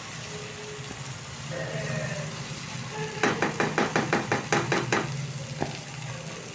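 Fried chicken pieces sizzling in masala in a pan as a spoon stirs them. About halfway through, the spoon scrapes the pan about ten times in quick succession, then gives one more tap.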